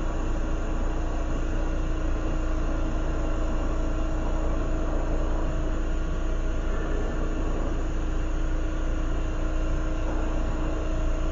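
Lampworking torch flame running with a steady rushing hiss, over a constant low hum.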